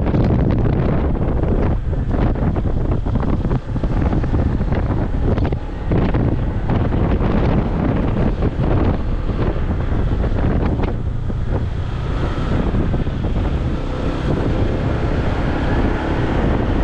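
Wind buffeting the microphone: a loud, continuous low rumble that gusts unevenly.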